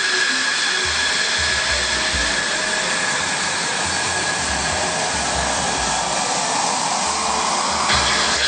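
Jet aircraft engine running: a steady high whine over loud rushing noise, with the rush sinking in pitch near the end.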